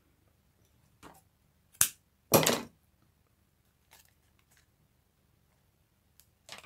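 Craft supplies being handled on a desk as a roll of adhesive is picked up: a light tap, a sharp click, then a short scraping rustle about two seconds in, followed by a few faint taps.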